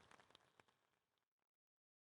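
Near silence: the faint tail of an applause effect dies away in the first half second, then dead silence.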